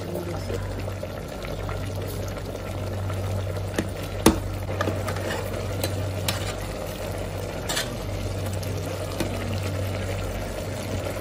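Metal skimmer spoon stirring rice in its cooking liquid in an aluminium pot, with wet stirring sounds and a few sharp knocks of the spoon against the pot, the loudest about four seconds in. A steady low hum runs underneath.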